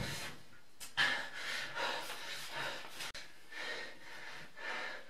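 A person breathing hard and fast in short, gasping breaths, about two a second.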